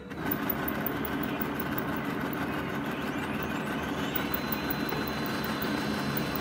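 Brother HL-L2321D laser printer starting up abruptly and running steadily as it feeds and prints a page, with a faint whine that rises about four seconds in and then holds. This is the report printed after the drum counter reset, showing the drum unit at 100%.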